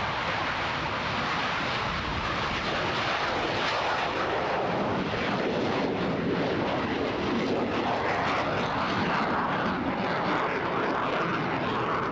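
McDonnell-Douglas F-4S Phantom II taking off, its twin J79 turbojet engines giving a steady, loud rushing jet noise as it lifts off and climbs away.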